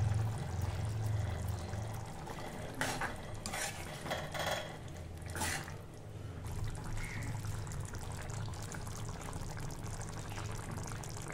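Metal spoon stirring a thin, wet potato bhaji in a kadhai, with a few clinks and scrapes of the spoon against the pan in the middle, over a steady low hum.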